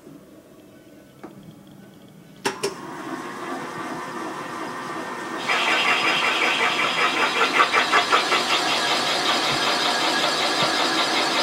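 A machine spindle clicks on about two and a half seconds in and spins up. About three seconds later the cutter bites into a new valve guide and its boss on an iron Pontiac cylinder head, trimming the guide top and outside diameter in one pass: a loud, steady cutting noise with a fast, even chatter.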